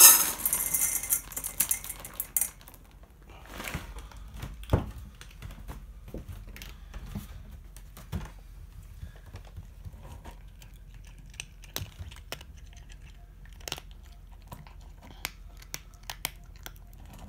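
Dry cat kibble poured into a stainless steel bowl, rattling loudly for about two and a half seconds. A cat then eats it, with scattered small crunches and clicks and a single knock about five seconds in.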